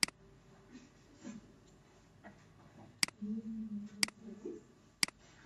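Computer mouse clicking: four sharp clicks, one at the start and then three about a second apart near the end.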